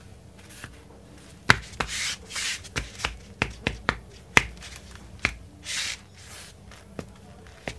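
Hands handling a futsal boot: an irregular string of sharp taps and clicks, with a couple of short rubbing swishes.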